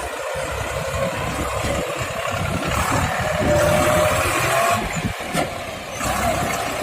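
JCB backhoe loader's diesel engine running under work, growing louder for a couple of seconds midway with a faint whine on top, then easing back.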